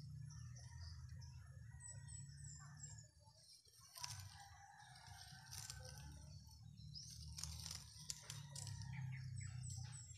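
A low steady hum with small birds chirping briefly a couple of times, and a few sharp clicks and rustles from hands working wire and leaves on a ficus bonsai branch.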